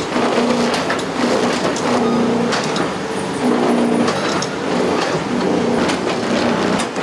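Sheepskin and leather processing machines running in a tannery workshop: a steady mechanical noise with a low hum that comes and goes, and scattered clicks.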